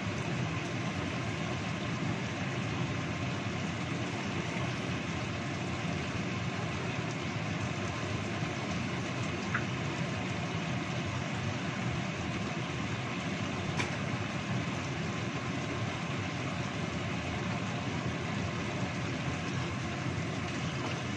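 Steady hiss and rumble of a wok of chicken in spiced sauce simmering over a gas stove burner.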